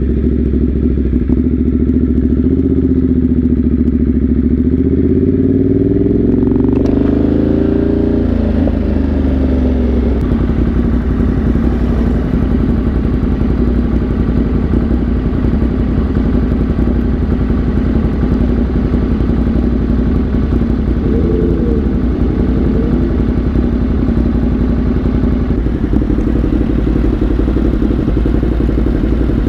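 Motorcycle engine under way: its revs climb over the first several seconds, then it settles into a steady cruise.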